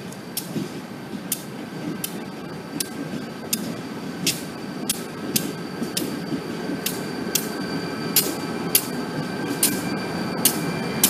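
A New England Central Railroad diesel locomotive running light past at low speed, its engine rumble growing louder as it nears. Over it come sharp, ringing metallic clicks that start about every 0.7 s and come faster as the locomotive draws alongside.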